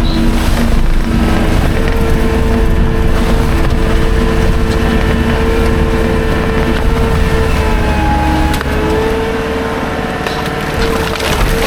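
Skid steer engine running steadily under load, with a steady whine over a low rumble; the pitch dips briefly about eight seconds in and again near the end.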